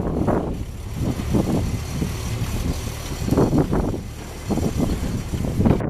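Ford 2N tractor's four-cylinder engine running, a steady low rumble with an uneven rise and fall in loudness.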